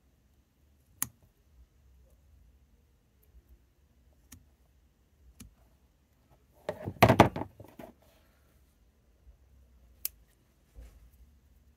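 A few sharp snips of a bonsai branch cutter cutting twigs off a small conifer, the first the loudest. Midway comes a louder burst of rustling as a hand brushes through the needles.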